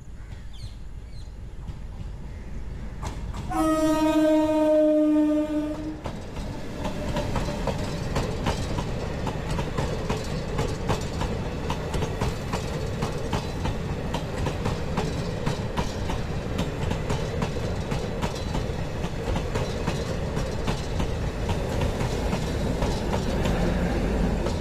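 Indian Railways DEMU (diesel-electric multiple unit) sounding one long, steady horn blast as it approaches, about three and a half seconds in. Its coaches then pass close by with a rapid, steady clickety-clack of wheels over the rail joints over a running rumble, a little louder near the end as the diesel power car comes level.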